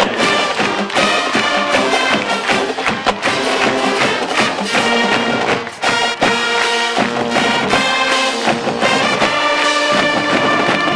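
A large high school marching band playing loudly: trumpets and other brass over bass drums, tenor drums and cymbal crashes.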